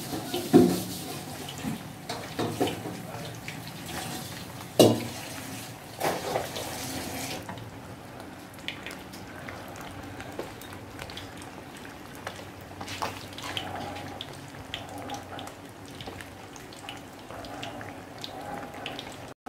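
Soup bubbling at a boil in a pot, with a few sharp knocks. About seven seconds in, the sound changes to fish frying in a wok of oil: low steady bubbling with many small scattered crackles.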